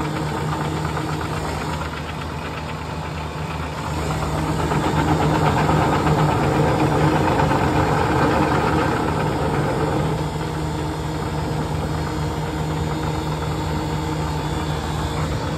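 Custard machine's refrigeration compressor running steadily with a low hum while R-507 refrigerant is charged in to clear a bubbling sight glass, a sign the system is low on charge. The hum swells for several seconds in the middle, then settles back.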